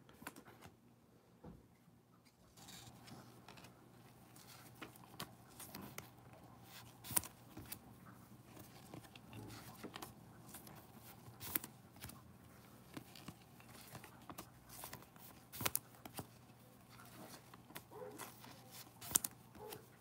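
Faint rustling and clicking of a stack of trading cards being handled and flipped through in gloved hands, with a few sharper snaps now and then, over a low steady hum.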